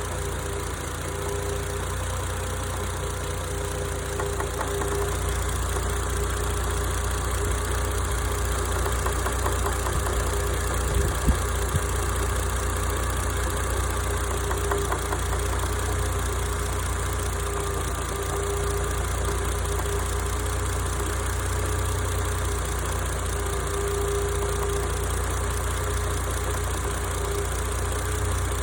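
Toyota JZX100's 1JZ-GTE turbocharged straight-six idling steadily with an abnormal noise, a faint tone that swells and fades over the engine note. There are a couple of sharp ticks about eleven seconds in.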